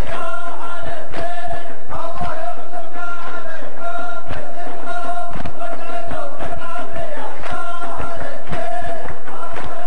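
A group of men chanting together in repeated phrases on a held pitch, over sharp percussive beats.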